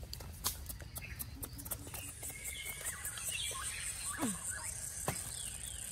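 Forest ambience: a steady high insect buzz that comes in about two seconds in, a few short bird chirps, and scattered small clicks and crackles as charred roasted cassava is peeled and handled.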